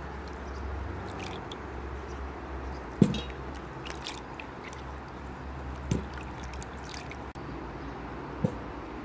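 Potatoes being washed by hand in a plastic bowl of water: light splashing and dripping with small clicks. Three short dull thumps, about three seconds apart, the first the loudest.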